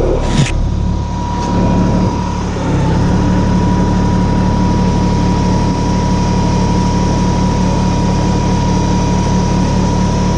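Kubota BX25 tractor's three-cylinder diesel engine running steadily, with a steady whine above it; a short knock comes just after the start, and the engine note changes about three seconds in, then holds.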